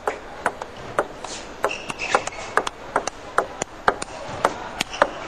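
Table tennis rally: the celluloid ball clicking off the players' rubber-faced paddles and bouncing on the table, roughly two hits a second, over a steady background hall noise.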